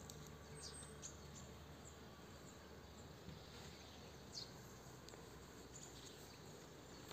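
Near silence: faint outdoor ambience with a low steady hum and a few faint, short high chirps.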